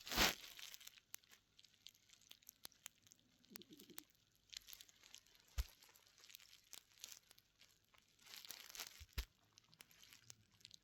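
A cat snoring: soft, hissy breaths that come back every couple of seconds, with scattered light clicks between them.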